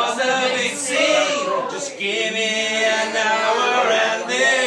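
Several men singing along together, loud and chant-like, with a brief break about two seconds in.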